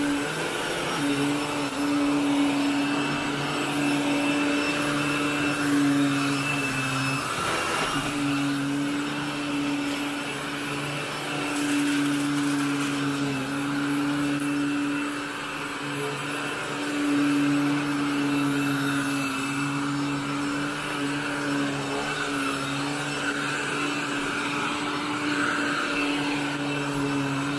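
Upright vacuum cleaner running on carpet during a dry-soil pre-vacuum, a steady motor hum that wavers as the machine is pushed back and forth and dips briefly about seven seconds in.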